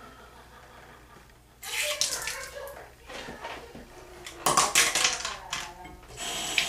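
Water squirted in jets into an ear canal to flush out earwax, hissing and splashing as it runs back out; three bursts, about one and a half seconds in, about four and a half seconds in, and near the end, the middle one the loudest.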